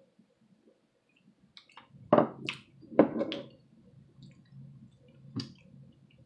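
Close-up wet, squishy mouth sounds of chewing a soft, sauce-coated potato, with a few sharp smacks: two loud ones about two and three seconds in and a single click near the end.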